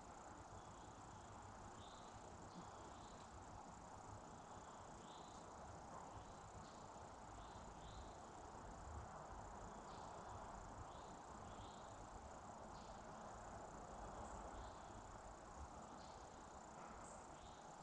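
Faint insect chorus: short chirps scattered irregularly over a steady high drone.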